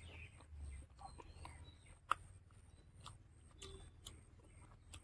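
Quiet eating sounds of a man chewing a mouthful of rice and pork by hand, with a few sharp mouth clicks or smacks, the loudest about two seconds in.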